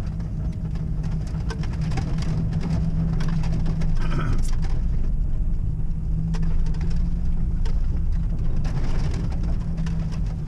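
Inside the cabin of a Suzuki Grand Vitara driving over a rough dirt track: a steady low engine and road drone, with frequent small knocks and rattles as the SUV rides over the bumps.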